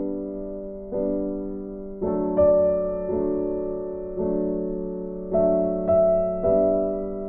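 Soft background piano music: slow, gently struck chords and notes that ring and fade, a new one every second or so.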